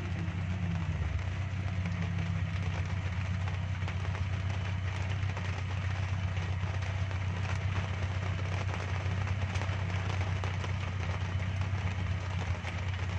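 Suzuki Jimny 4x4 engine running steadily at low revs, with no revving, while the vehicle crawls in an off-road river and rock-climbing run. Faint scattered ticks sit over the engine.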